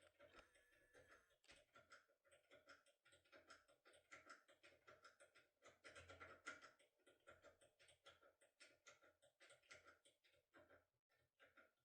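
Faint, irregular clicking and scraping of a lock-pick tool being worked inside a Delta cylinder lock, several small clicks a second.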